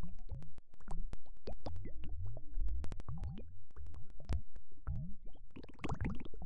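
Underwater bubbling: a dense stream of bubble plops and gurgles, each a quick rising blip, with sharp clicks, over a low steady rumble.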